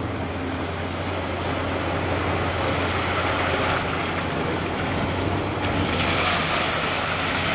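Caterpillar 374D excavator's diesel engine running with a steady low drone, under a dense hiss that grows louder about three seconds in and again near the end as the machine works.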